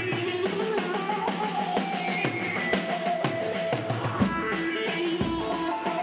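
Live Turkish folk dance music with a plucked-string melody over a steady drum beat; heavier low drum hits come in about four seconds in.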